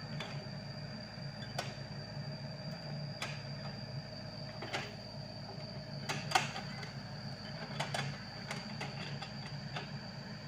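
Sany SY55C mini excavator's diesel engine running steadily while the bucket digs soil, with a steady high whine and sharp knocks about every second and a half, the loudest about six seconds in.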